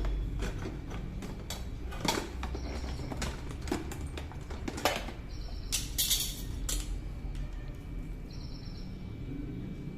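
Light, irregular clicks and taps of hands working dough in a plastic kajjikaya mould, with a short scraping rustle about six seconds in, over a steady low hum.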